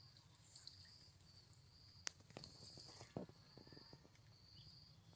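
Near silence: faint high-pitched insect chirring that comes and goes, with a few soft clicks about two to three seconds in.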